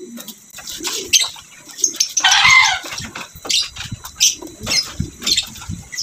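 Wet corn kernels stirred by hand in a plastic basin, the grains shuffling and clicking irregularly as coarse salt is worked through them. A short bird call about two seconds in.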